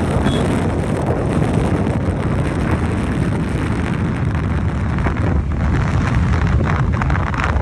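Steady wind buffeting on the microphone of a camera riding on a moving motorcycle, with the bike's engine and road noise underneath.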